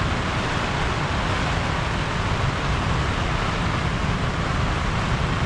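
Steady rain and wind of a severe tropical storm, an even hiss with gusty low rumble of wind buffeting the microphone.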